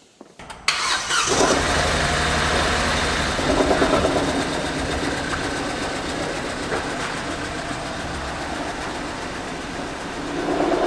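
A vehicle engine starts up about a second in, then runs steadily, picking up briefly around four seconds.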